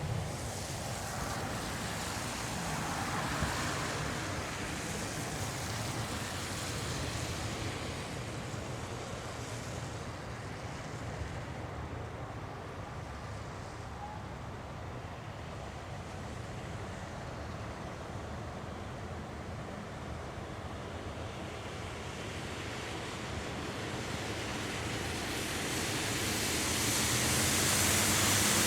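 Jet noise from the four turbofan engines of a USAF C-5M Super Galaxy: a steady rumble and hiss that eases off a little in the middle, then grows louder and brighter over the last few seconds as the aircraft comes closer.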